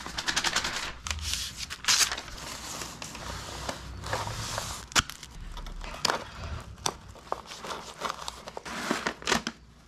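Duct tape ripping off the roll in a quick rattle and paper crinkling, with scattered sharp clicks and rustles, as a paper backing is taped into the broken section of a fiberglass car lip.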